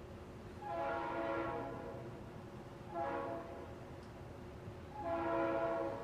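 Train horn sounding a long blast, a short blast, then another long blast, over the steady running of a ceiling fan.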